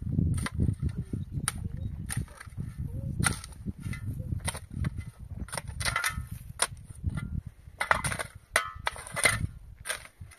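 Irregular sharp knocks and clacks of hard objects striking, roughly one or two a second, over a low rumbling noise.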